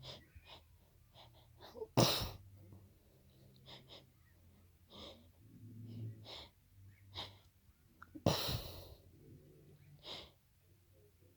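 A person sneezing with allergies: two loud, explosive sneezes, about two seconds in and again about eight seconds in, with shorter, quieter breaths and stifled, held-back sneezes between them.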